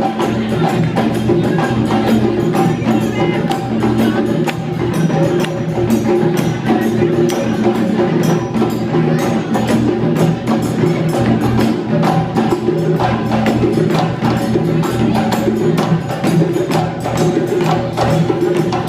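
Senegalese sabar drums played fast and continuously, a dense run of sharp strikes, with a steady sustained tone underneath.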